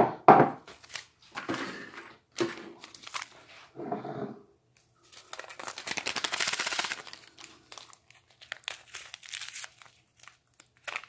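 Foil MRE ration packets crinkling and a foil pouch being torn open, with a longer tearing, rustling stretch about five to seven seconds in. At the very start there is a loud knock as a ceramic mug is set down on the wooden table.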